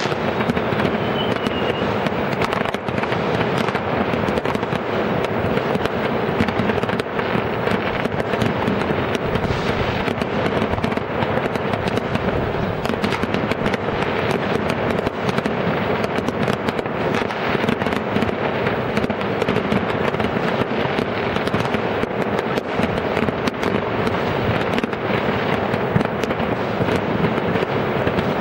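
New Year's Eve fireworks: a continuous dense barrage of bangs and crackles from many rockets and firecrackers going off at once, with a short high whistle about a second in.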